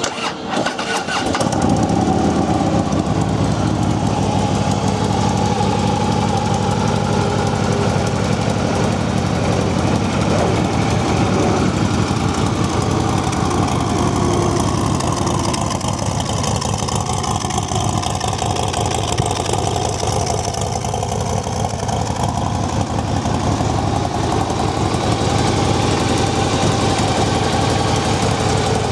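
2014 Harley-Davidson Ultra Limited's 103-cubic-inch fuel-injected V-twin, breathing through a Vance & Hines 2-into-1 Pro Pipe exhaust, started up about a second in, then idling steadily.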